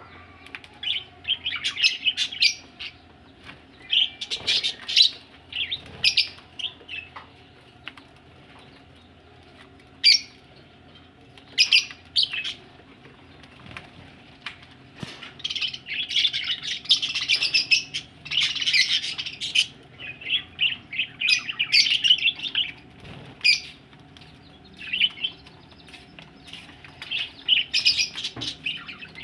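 Budgerigars chirping and chattering in quick, high, scattered bursts, busiest and most continuous past the middle.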